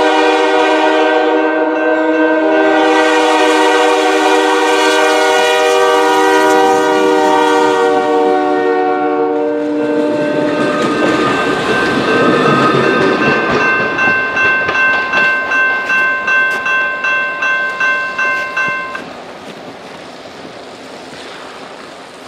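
Diesel locomotive's multi-chime air horn blowing one long sustained chord as the train passes, followed by the two passenger cars' wheels clacking rhythmically over the rail joints, about two clacks a second. The sound drops off sharply about nineteen seconds in, leaving a fainter rumble as the train moves away.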